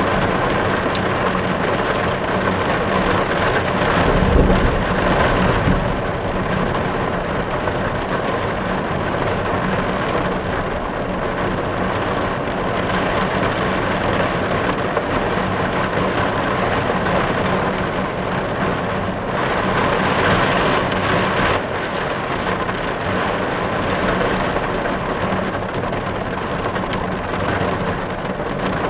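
Rain falling on a car, heard from inside the cabin as a steady, dense patter on the roof and glass. A low rumble swells about four seconds in, and the rain grows heavier for a couple of seconds around two-thirds of the way through.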